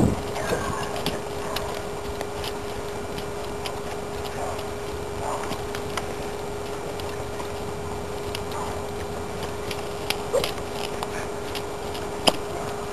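Hoofbeats of a palomino Morgan mare moving around a dirt round pen: scattered soft knocks, with a sharper click near the end, over a steady low hum.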